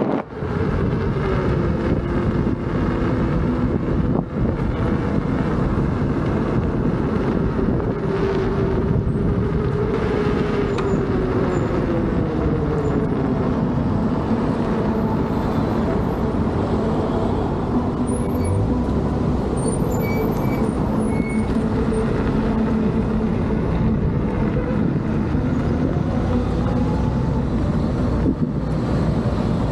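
Leaperkim Patton electric unicycle's tyre humming as it rolls along the road, over a steady rumble of road and wind noise. The hum rises slightly, drops lower about halfway through and then holds steady.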